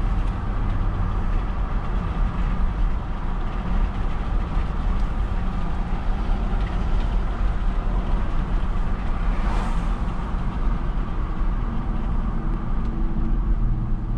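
Chevrolet Suburban with its 5.3-litre V8 on a test drive, heard from inside the cabin: a steady rumble of engine and road noise. A brief rush of noise comes just before ten seconds in, and the engine hum becomes steadier and clearer near the end.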